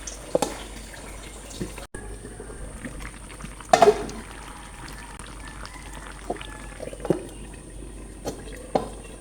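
Kitchen cooking sounds: liquid in a pot over a steady background, with a few sharp knocks of utensils or cookware, the loudest about four seconds in.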